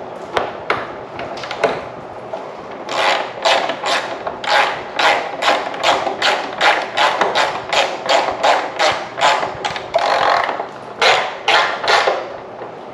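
Hand ratchet wrench driving in a fender bolt: a few scattered clicks, then quick, even ratcheting strokes about three a second, a short pause, and three more strokes near the end.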